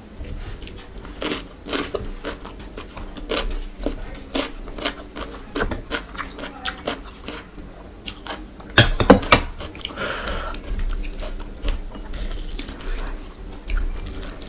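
Food being handled by hand on a plate: scattered small clicks and wet taps. About nine seconds in comes a louder cluster of knocks and splashing as curry gravy is poured from a small glass bowl over the rice. Toward the end there are soft squishing sounds as rice is mixed with gravy by hand.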